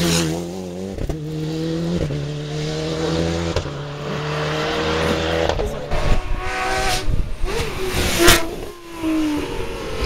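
Rally car engine held at steady revs for a few seconds, then revving up and down, with a sharp crack about eight seconds in and the revs dropping near the end.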